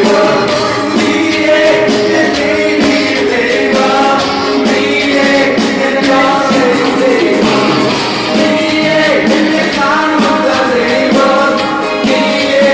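Live church band playing a song at a sound check: singers over keyboard and a rhythm section, with steady percussion hits.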